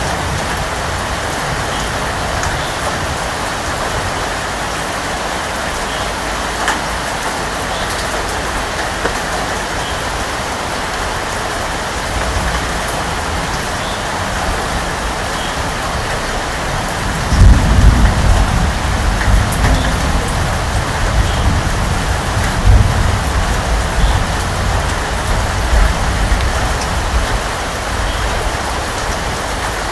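Steady rain falling, with a loud low rumble of thunder that sets in a little past halfway and rolls on in swells for several seconds.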